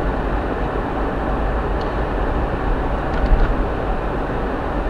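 Steady road noise inside a moving car's cabin: tyres rolling on a sealed bitumen road and the engine cruising, with a strong deep rumble underneath.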